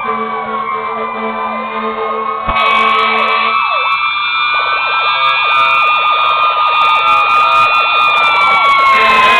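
Several fire truck sirens sounding at once, with slow wails overlapping quick repeated up-and-down yelps. A low pulsing tone runs under them for the first few seconds, and the sirens get louder about two and a half seconds in.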